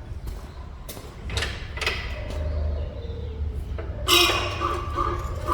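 Mechanical work on a pickup's front suspension as the control arm is lowered to relieve spring pressure: a few knocks and clicks, then a louder creaking squeal for about a second, about four seconds in.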